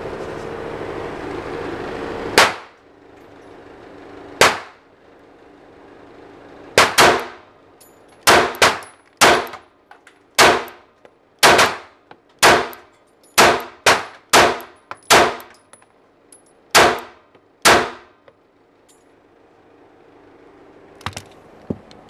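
A 9mm pistol fired about seventeen times, each a sharp crack: two single shots a couple of seconds apart, then a quicker, uneven string of shots, some in close pairs.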